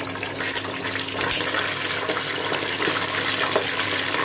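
Half a chicken sizzling and crackling in hot oil in a stainless steel pot, with a dense spitting hiss that builds slightly about a second in. The oil is too shallow to cover the chicken. A steady low hum runs underneath.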